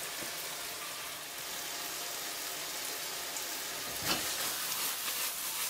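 Frying pan sizzling steadily as spaghetti finishes cooking in it, with a light knock about four seconds in.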